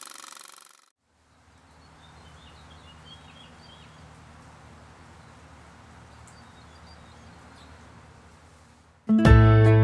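A mechanical rattle fades out in the first second. Faint outdoor ambience follows, with a few soft bird chirps about three seconds in. Acoustic guitar music starts loudly near the end.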